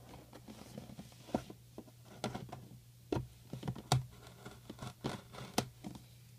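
Fingers tapping and scraping on a cardboard trading-card box as it is handled: a scattered series of light taps and scratches, over a faint steady low hum.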